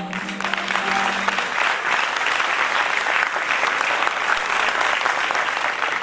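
Audience applauding at the end of a stage performance, dense and steady, while the last held note of the backing music fades out in the first second and a half.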